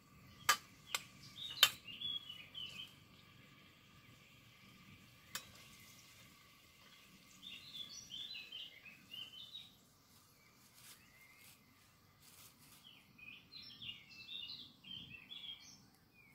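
A few sharp metal clinks of a utensil against a steel cooking pot in the first two seconds, and one more about five seconds in. A bird sings three short bursts of quick chirping notes.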